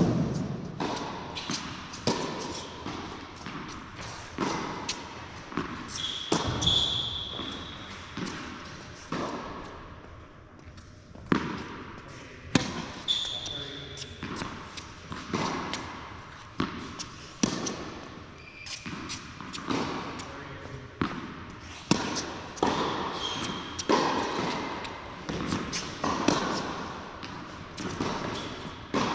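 Tennis rally on an indoor hard court: rackets striking the ball and the ball bouncing, a sharp hit every second or two, each echoing in the hall, with a few brief high squeaks.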